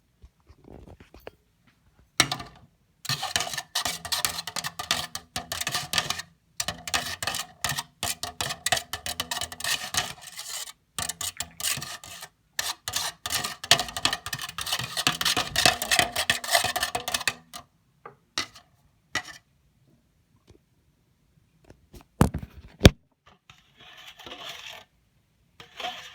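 Slime being squeezed and stretched by hand, giving a dense run of wet crackles, clicks and pops for about fifteen seconds, then only a few scattered clicks.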